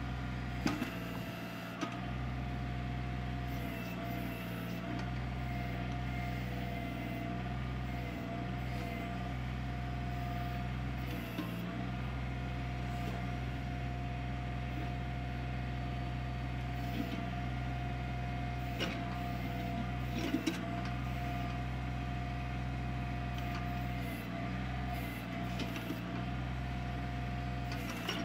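Kioti CK25 compact tractor's diesel engine running at a steady speed, with a few brief clicks and knocks over it.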